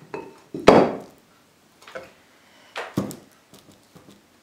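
A few knocks of objects being handled and set down on a wooden tabletop, the loudest about two-thirds of a second in and another about three seconds in.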